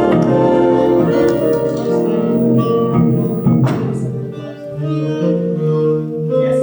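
A big band plays the instrumental close of a ballad, moving through held, sustained chords. A single sharp hit with a ringing tail lands about three and a half seconds in.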